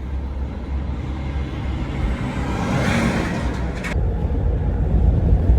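Steady low road-and-engine rumble of a van driving on the highway. A rushing noise swells and fades in the middle, and about four seconds in the higher hiss drops away abruptly, leaving only the low rumble.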